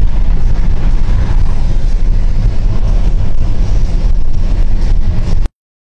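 Loud, steady noise inside a car's cabin at about 140 km/h: wind, tyre and engine noise with a heavy low rumble. It cuts off abruptly about five and a half seconds in.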